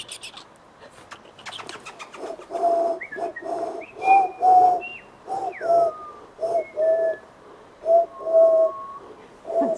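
A dove cooing: a run of short low coo notes, mostly in pairs, repeated every second or so. A few thin, higher bird notes and short whistled glides come in between.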